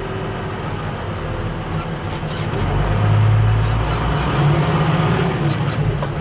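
New Holland 8160's six-cylinder non-turbo diesel engine running under load, driving a round baler through its 1000 PTO. The engine note grows louder and heavier about three seconds in as the tractor works harder, with a few light clicks and rattles over the drone.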